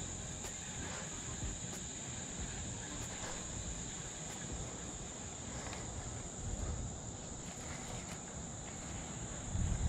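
Insects chirring steadily in one high, unbroken tone, over a faint low rumble.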